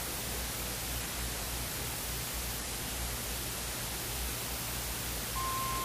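Steady hiss with a low hum underneath, the background noise of an old tape-recorded soundtrack. Near the end comes a short, steady mid-pitched beep lasting about half a second.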